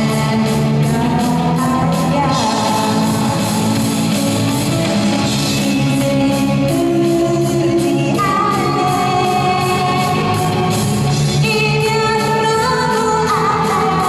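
Live pop-rock music: a woman singing into a microphone over electric violin and keytar, with a steady beat, played through stage loudspeakers in a large hall.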